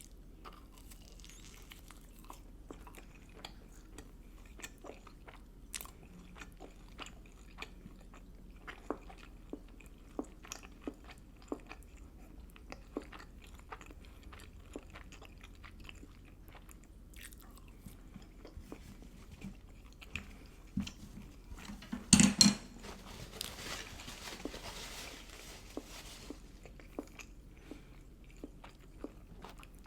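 Close-miked chewing and biting of food, with many small wet mouth clicks. About two-thirds of the way in comes a brief loud clatter, followed by a few seconds of soft hiss.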